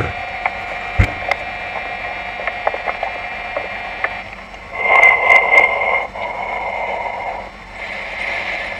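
A message played back through a mobile phone's loudspeaker: a thin, tinny, crackly sound with a steady whine, clicks, and two longer stretches of static starting about five and eight seconds in.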